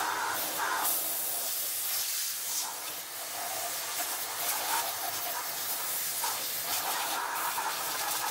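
Kärcher vacuum cleaner running, its nozzle sucking coffee grounds off the burr of an espresso grinder: a steady rush of air that shifts as the nozzle moves over the burr.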